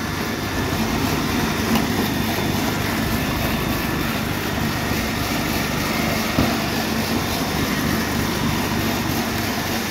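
An electric motor driving a generator, running steadily with no change in speed.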